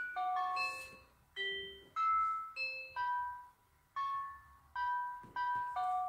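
Emergency alert tone made of a melody of bell-like chime notes. Each note is struck and fades, about two notes a second, with brief pauses between phrases.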